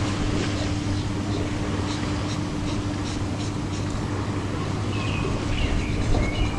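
Steady background hum and rumbling noise with a constant low tone, with faint short ticks and a few brief chirps over it.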